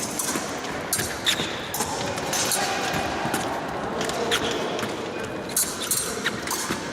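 Épée fencing bout: irregular sharp clicks and clacks of blades meeting and quick thumps of fencers' feet on the piste, over a murmur of a large hall.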